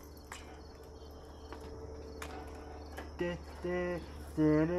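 A few light clicks of tongs on the gas grill's grate over a faint steady outdoor drone. About three seconds in, a voice starts singing short held notes, then one long note that steps in pitch, louder than anything before it.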